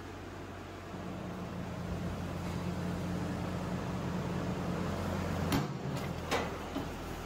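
Hydraulic press's electric pump motor humming steadily, getting louder about a second in, with two sharp knocks near the end.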